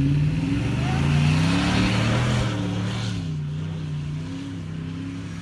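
2010 Ford Raptor's V8 engine revving: the pitch climbs over the first couple of seconds, then falls back and runs steadier.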